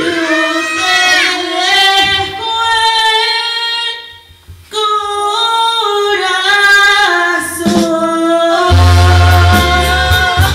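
Two women singing into microphones over amplified backing music, with a short break in the voices about four seconds in. Near the end the singing gives way to the backing music, with a heavy bass.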